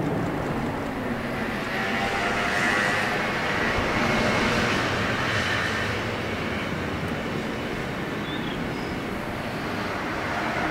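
Boeing 737-700's twin CFM56-7B turbofan engines at take-off thrust, a steady engine roar as the airliner climbs away just after lift-off. It swells a few seconds in and eases slightly toward the end.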